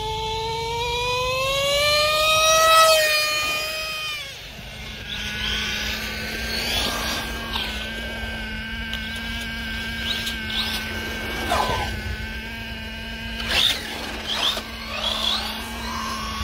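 Nitro RC buggy engine revving hard. Its pitch climbs for about three seconds, peaks in loudness near three seconds in, then drops away. A steady drone follows, with several short rising and falling whines from the cars running on the road.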